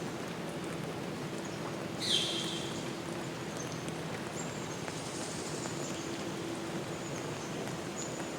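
Forest nature ambience: a steady rushing like rain or running water, with thin high bird calls recurring, and one louder call sweeping quickly down in pitch about two seconds in.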